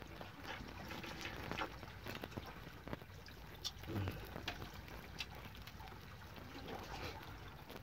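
Tableware clinking during a meal: chopsticks and a plastic ladle tapping a metal pot and bowls as soup is ladled out, in many short sharp clicks over a steady wash of background noise. A short low sound comes about four seconds in.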